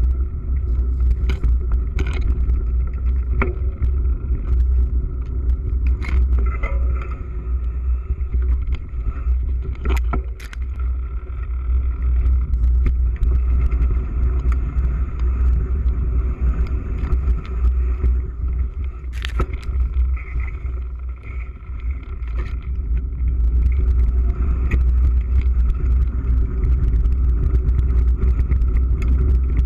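Mountain bike ridden fast over a dirt singletrack, heard through a bike-mounted GoPro: a steady heavy wind rumble on the microphone with tyre noise over the ground. Sharp rattles and knocks come from the bike over bumps, a few of them standing out.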